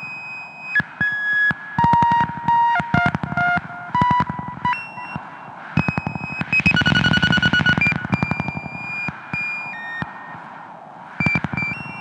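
DIY modular synthesizer, driven by light sensors under a rotating cardboard stencil, playing steady beeping tones that hold briefly and then jump to new pitches, over a rapid clicking pulse. About seven seconds in it turns into a busier, louder buzzing stretch.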